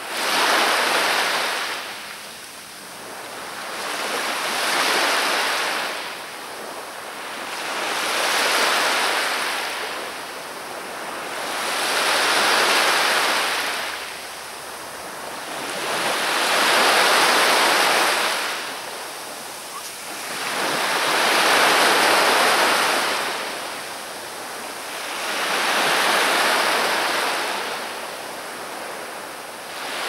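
Black Sea surf: waves breaking on the shore one after another, each a rush of noise that swells and fades, about one every four seconds.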